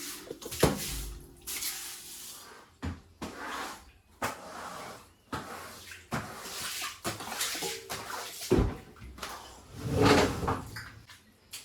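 Kitchen cleaning sounds: irregular swishing and scattered knocks, as cupboard doors and items are handled. The loudest stretch is near the end.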